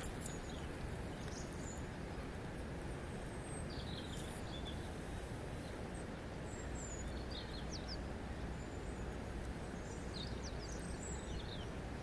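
A river flowing steadily over a stony bed, an even wash of water sound, with small birds chirping briefly now and then.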